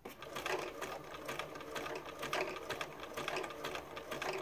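Vintage Bernina 1230 sewing machine starting up at once and stitching a button on in place, its needle zigzagging between the button's holes with the stitch length set to zero. A steady motor hum runs under a regular clicking of stitches.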